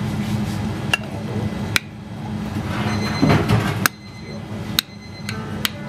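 Metal spoon clicking and clinking against a ceramic plate about five times while scooping curry and rice, some strikes leaving a short high ring, over a steady low restaurant hum.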